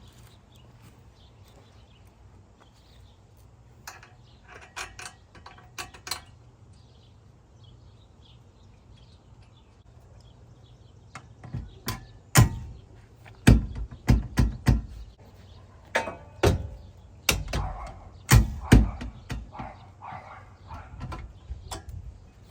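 Irregular loud knocks and clanks of metal on metal from fitting and bolting a tube half door onto a Jeep's hinges. A few light clicks come first, then a dense run of knocks through the second half.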